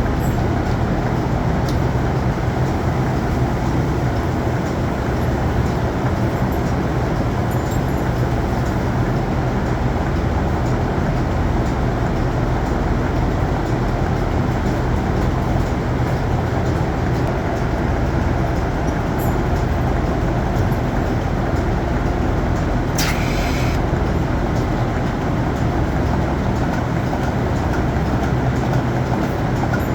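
Steady, loud machinery drone with a constant low hum, typical of a dairy barn's milking vacuum pump and ventilation running during milking. A brief hiss cuts in about three-quarters of the way through.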